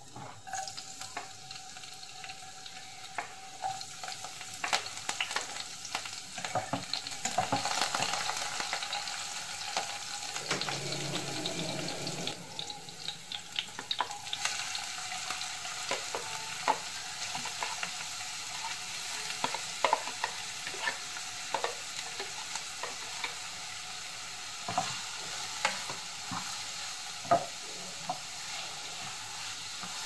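Chopped green chillies and onions sizzling in hot oil in a nonstick kadhai, the hiss building over the first third. Frequent light clicks and scrapes of a spatula stirring in the pan.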